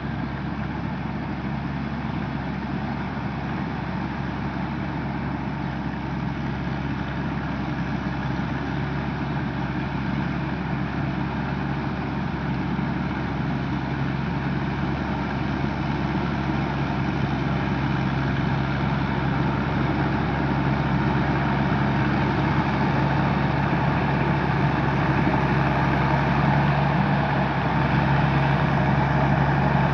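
Tamco S9000 combine harvester's Isuzu 6HK1 six-cylinder diesel running steadily, growing gradually louder.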